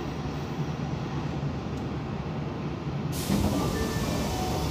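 Interior sound of an Osaka Metro 22 series subway car: a steady low rumble of the running gear as the train comes in to stop. About three seconds in, a sudden hiss of air starts.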